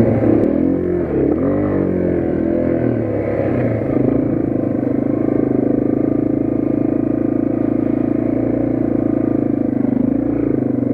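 Yamaha TW200's air-cooled single-cylinder four-stroke engine under way on a dirt trail, its revs rising and falling for the first few seconds, then running at a steady speed.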